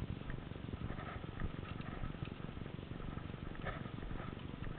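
Footsteps and rustling on dry ground littered with pine needles and twigs, over a steady low rumble on the microphone, with a few faint clicks scattered through.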